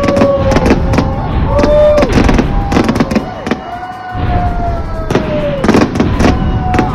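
Fireworks going off in a rapid run of sharp bangs and crackles, with music playing underneath in long held notes.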